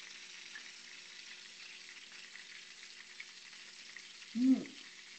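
Breaded stuffed chicken rolls sizzling in a frying pan on the stove: a steady faint hiss with small crackles. Near the end, one short vocal sound from a person eating.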